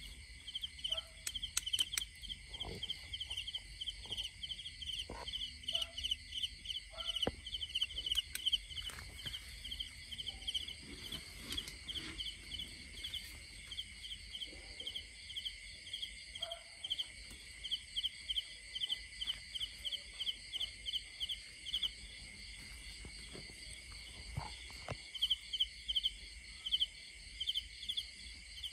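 Night insect chorus: crickets chirping in quick repeated pulses over a steady high buzz from other insects. Faint rustles and small knocks of dry leaves and stalks being brushed aside come through now and then.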